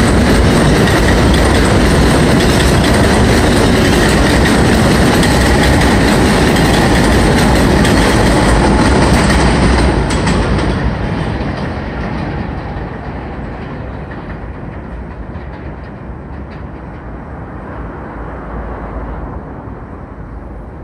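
Kawasaki R142A subway train departing the station, with steady wheel-on-rail running noise. It is loud at first, then fades about ten seconds in as the last cars pull away.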